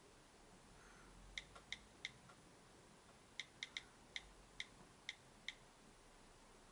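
iPhone 5 on-screen keyboard key-click sounds as letters are typed into the Safari address bar. There are three quick clicks, a short pause, then seven more clicks at an uneven typing pace.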